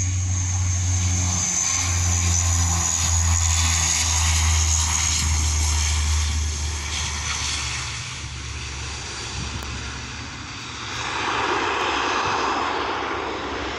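Antonov An-24's two turboprop engines running as it rolls along the runway after landing: a steady low propeller drone under a high turbine whine that slowly falls. The drone fades about eight seconds in, and a broad rushing noise swells a few seconds later.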